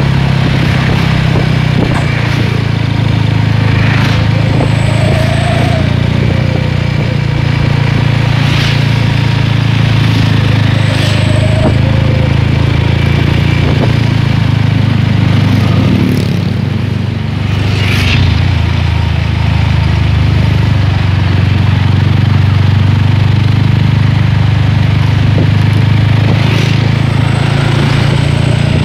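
Motorcycle fitted with an aftermarket 'srigala' exhaust, cruising at a steady speed: a loud, steady, low exhaust note that holds nearly the same pitch, with a few brief rushes of noise over it.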